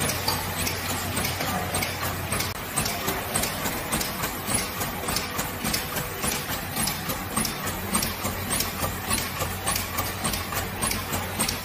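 DXD120 high-speed tea bag packing machine running, its mechanism clacking in a fast, regular rhythm over a steady low hum as it feeds, forms and cuts double rows of inner bags.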